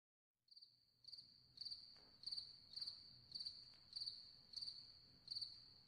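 A cricket chirping faintly: a high chirp repeated steadily, a little under twice a second.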